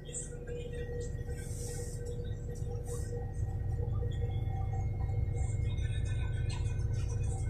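Inside the cabin of a Volgabus-5270.G2 city bus standing at a stop: its Yuchai YC6L280N-52 liquefied-natural-gas engine idling as a steady low hum that grows louder about three seconds in, with faint steady tones and light clinks over it.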